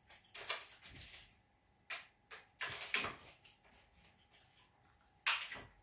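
Baby macaque gnawing on a hard black plastic stick: a few short scraping noises of teeth on plastic, the loudest about three seconds in and again near the end.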